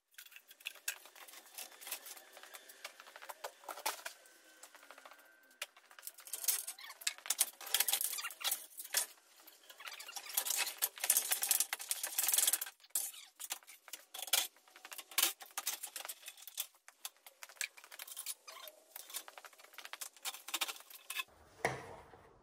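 Rapid, dense clatter of clicks and rattles from hand work on a truck's front end as lights and trim are taken off, thin and high with no deep sounds, busiest in the middle and stopping abruptly near the end.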